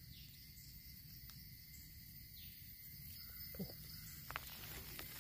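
Steady high-pitched insect chorus buzzing without a break, with a few faint clicks and rustles in the second half.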